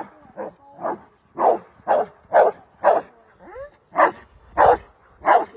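Pit bull barking over and over, about two barks a second, with one brief higher whining call a little past halfway.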